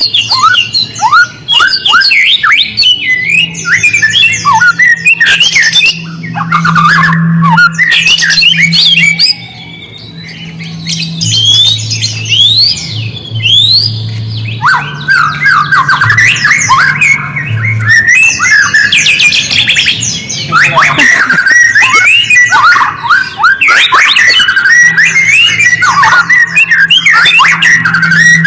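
A songbird giving a dense stream of harsh, rapid chattering calls mixed with quick falling whistles, used as a lure recording to provoke white-rumped shamas. It briefly quietens about ten seconds in, and a low hum comes and goes underneath.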